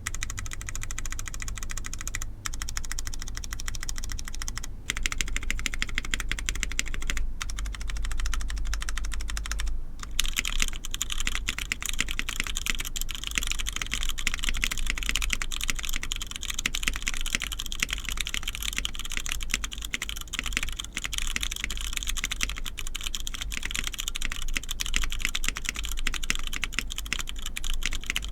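Typing on an Ori-Club CLS-2 mechanical keyboard with diamond-polished, Krytox 205g0-lubed Cherry MX Brown tactile switches in an aluminium plate, under Zenclack keycaps: quick, continuous keystrokes. There are a few short pauses in the first ten seconds, and the keystrokes come denser after that.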